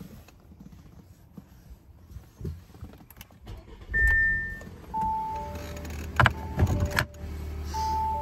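Audi Q7 engine starting about four seconds in with a short surge, then settling into a steady idle. Over it, two-note warning chimes repeat, with a few sharp clicks around the middle.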